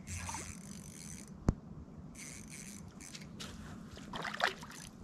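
Spinning reel being cranked as a hooked trout is reeled in: a soft scraping whir, with one sharp click about a second and a half in. A short splash near the end as the trout reaches the surface.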